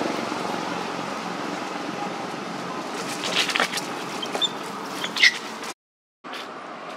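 Steady outdoor background noise with a handful of short, high chirps from about three seconds in, the loudest just past five seconds. The sound cuts out briefly to silence near the end.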